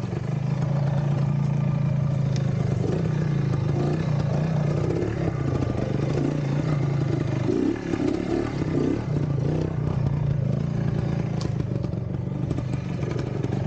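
Vintage trials motorcycle engine running steadily, with a brief dip in loudness about eight seconds in.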